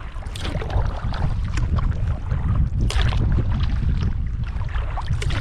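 Kayak paddle strokes splashing in the water about once a second, with steady wind buffeting the microphone.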